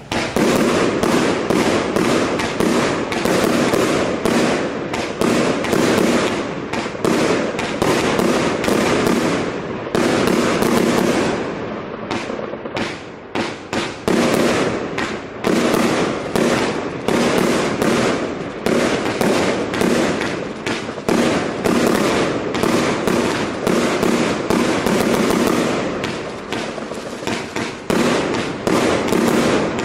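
A 100-shot, 25 mm compound firework cake firing: shots launching and bursting in quick succession, one after another without a break. The volley thins briefly about twelve seconds in, then picks up again.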